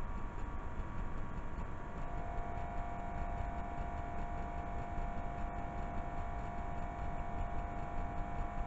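Steady hiss and low hum of an old VHS tape playing through a silent stretch, with faint steady whining tones; a higher whine comes in about two seconds in.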